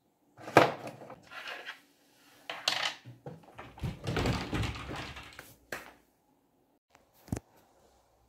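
Plastic and glass toiletry bottles clattering and clicking as they are set down and shuffled on a wooden wardrobe shelf, with a longer scraping rustle in the middle and one sharp knock near the end.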